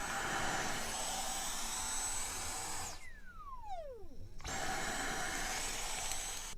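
Dyson Cyclone V10 cordless stick vacuum running with a steady high whine. About three seconds in it is switched off and the motor spins down in a falling whine. About a second and a half later it is switched back on.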